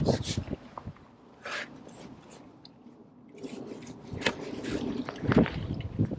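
Rustling and scraping as a carbon fishing pole is handled, with a sharp click about four seconds in and a louder knock a second or so later.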